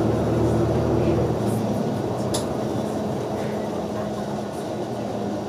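City bus engine and road noise heard from inside the cabin: a steady low hum whose note changes about a second and a half in and then eases off a little. A single sharp click comes a little past two seconds.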